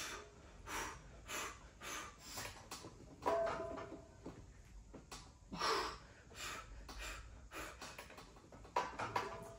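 A man's hard, rhythmic breathing through a set of bench presses: a short forceful exhale every half second or so, with two louder, strained ones about three and six seconds in. A few light clicks near the end.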